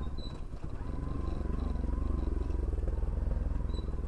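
Bajaj Pulsar NS160's single-cylinder engine running steadily through a modified exhaust.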